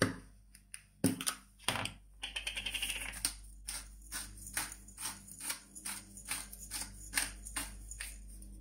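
Hand-twisted pepper mill grinding black peppercorns: a steady run of short crunching clicks, a few a second, after a couple of knocks in the first two seconds.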